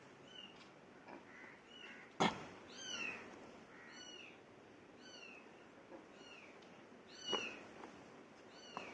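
A small animal's short, high calls, each rising then falling, repeated about once a second. A sharp knock comes about two seconds in and another about seven seconds in.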